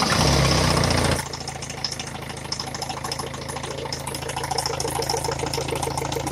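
Peugeot 307 1.6 HDi four-cylinder turbodiesel, just started: it runs fast and loud for about a second, then drops to a steady idle. Through the idle runs a knock that the mechanic puts down to a knocking piston.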